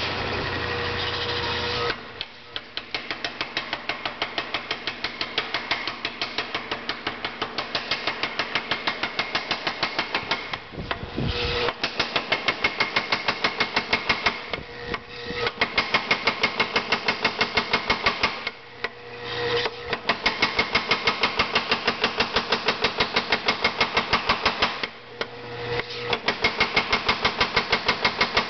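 A 25 lb Little Giant mechanical power hammer, its motor running for about two seconds before its dies start striking red-hot round steel stock in a rapid, even rhythm of several blows a second, drawing the bar down. The hammering stops briefly a few times and then resumes.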